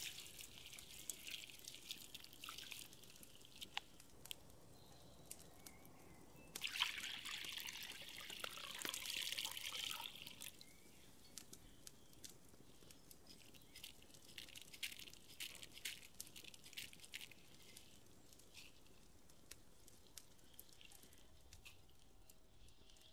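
Water dripping and trickling as grains are rinsed in a stainless steel colander, with a louder stretch of running water for about three seconds near the middle.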